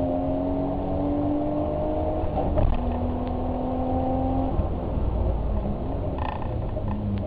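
Car engine running under load: its note climbs slowly, drops back with a brief knock about two and a half seconds in, holds steady, then gives way to a lower rumble.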